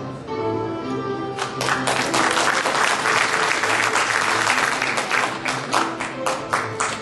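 Audience applauding over background music. The clapping starts about a second and a half in and thins out near the end.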